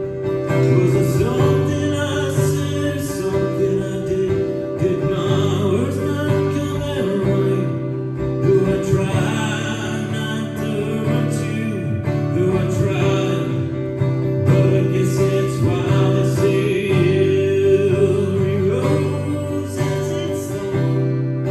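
Music: a song with singing over guitar.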